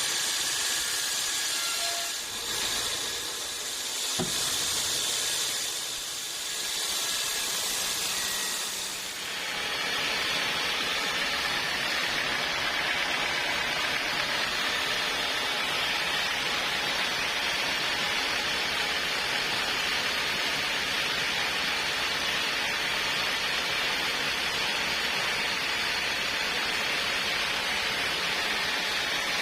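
Portable sawmill saw cutting through a log: a steady hissing noise that changes character about nine seconds in and then runs on evenly.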